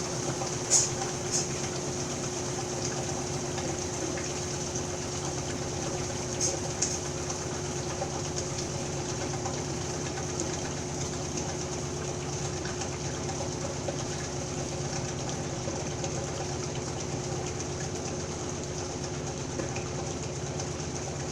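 Washing machine running with a steady motor hum and rumble, with a few sharp clicks about a second in and again around six seconds in.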